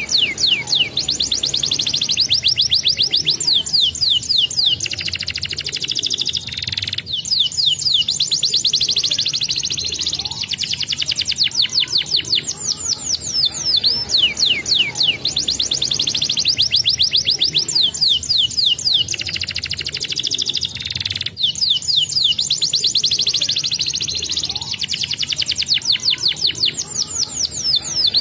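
Domestic canary song: long rolling trills of fast, rapidly repeated high sweeping notes with brief pauses between runs. The same sequence recurs about every 14 seconds, as in a looped lure recording played to prompt young canaries to roll.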